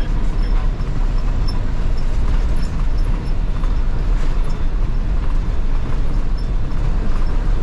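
JKSRTC bus driving at speed on a highway, heard from inside the driver's cabin: a steady low rumble of the running bus.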